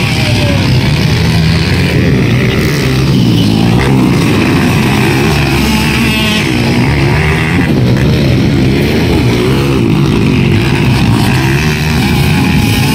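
Several dirt bike engines revving up and down as the bikes race over a rough grass track, their pitch rising and falling continuously and overlapping.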